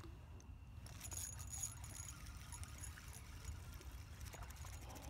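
Spinning reel being cranked to retrieve line, its gears giving a fine, fast ticking, with a brief high hiss about a second in. A low steady rumble runs underneath.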